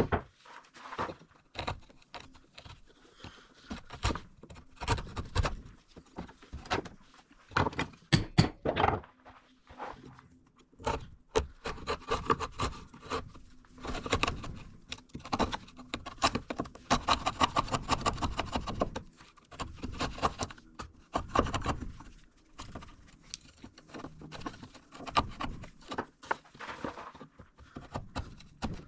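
Chisel cutting out a groove in a wooden board, with a hammer blow on the chisel right at the start, then many short scraping strokes and clicks as the waste is pared away by hand, busiest in the middle.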